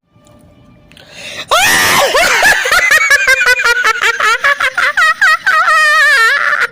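A shrill, high-pitched laugh sound effect: after a second and a half of quiet it starts with a rising squeal and breaks into a long run of rapid, wavering cackles that stop just before the end.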